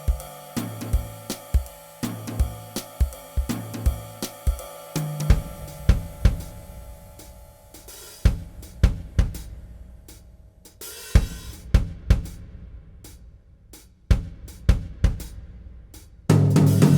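Instrumental jazz from a film score: a bass line pulsing under drum kit hits, then about six seconds in the bass drops out and the drum kit plays a sparse break of snare, cymbal and kick strokes. Near the end the full band comes back in loudly.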